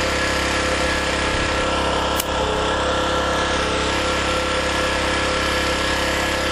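Small portable generator engine running steadily on a little gasoline with HHO (hydrogen-oxygen gas from an electrolyzer) fed into its intake. A single sharp click about two seconds in.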